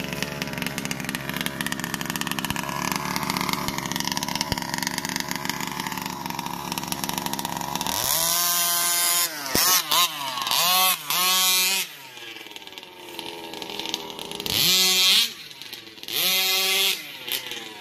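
Gas-powered RC buggy's small two-stroke engine idling steadily for about eight seconds, then revved hard in several short bursts as the car drives off, each rev climbing and dropping back.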